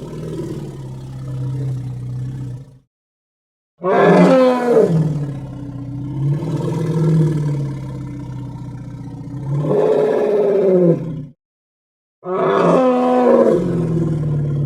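Elephant calls from an animated film's sound effects: long pitched cries that swoop down in pitch and settle into a low, steady rumble. The calls are spliced together and cut abruptly to silence twice, for about a second each time.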